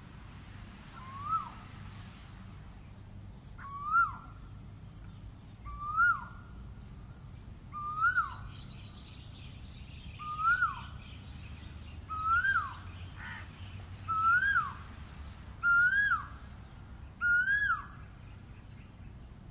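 Male Asian koel calling its loud 'ko-el' nine times, about every two seconds. Each call rises and then drops sharply in pitch, and the calls grow louder and longer toward the end of the series.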